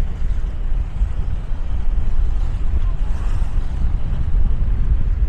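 Low, heavy rumble of wind buffeting the microphone over the steady drone of a tugboat's engine pushing a ferry barge.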